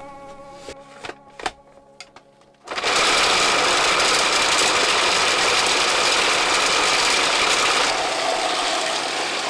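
Electric food processor starting about three seconds in and running steadily, chopping garlic scapes into a paste for pesto; it drops a little in level near the end.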